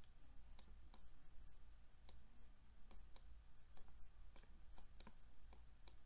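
Pen or stylus tip tapping on a touchscreen while handwriting. It makes faint, irregular clicks, about two or three a second, over a low steady hum.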